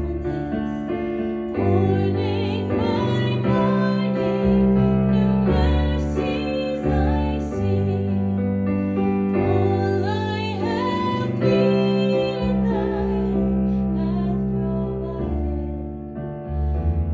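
Piano music: held bass notes changing every second or two, under a melody that wavers in pitch.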